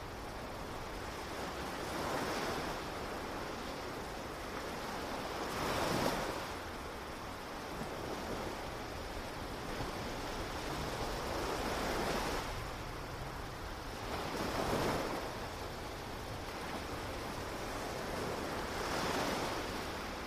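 Ocean surf breaking on a shore, swelling into a wash of waves every few seconds.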